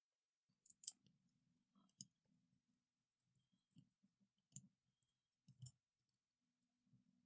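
Scattered faint, sharp clicks of small metal parts and a driver bit against the Civivi Elementum II knife as a screw is worked out of it.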